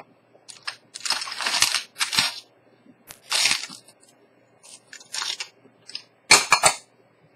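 Several short bursts of crunching, crinkling noise close to the microphone, the last one, near the end, the loudest.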